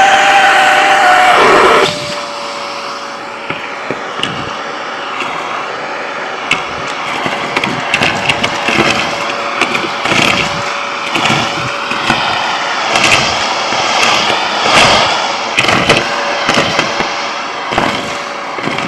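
Vacuum cleaner running, its motor giving a loud steady whine that drops to a quieter hum about two seconds in, with frequent clicks and rattles over the rushing air.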